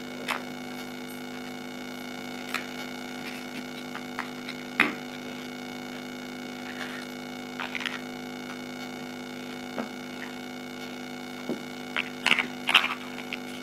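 Plastic interlocking building bricks clicking and knocking now and then as they are handled and pressed together, over a steady electrical hum. The loudest click comes a little under five seconds in, with a cluster of clicks near the end.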